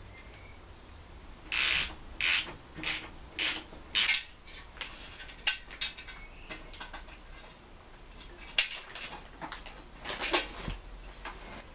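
Workshop handling noises on metal motorbike parts: five short scraping rasps about half a second apart, then scattered clinks and knocks.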